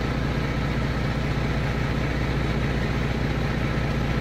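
Duramax 6.6-litre turbodiesel V8 of a GMC TopKick C7500 idling steadily with a deep, low exhaust note. It runs with no muffler: the driver believes the muffler is completely gone or cracked.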